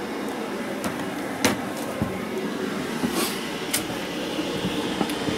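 2 kW diesel air heater running steadily, its blower fan and burner giving a continuous airy hum while the unit is still warming up after start-up. A few sharp clicks sound over it, the loudest about a second and a half in.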